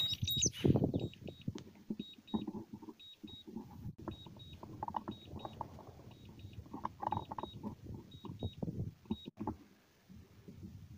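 DJI Phantom 3 remote controller beeping in short high double beeps, repeated steadily, its warning while the drone returns home and lands. Irregular rustling and knocks sound underneath.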